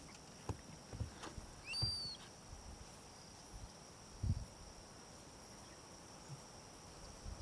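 Quiet bush ambience: a steady high insect drone, one short rising-then-falling bird chirp about two seconds in, and a few soft low thumps.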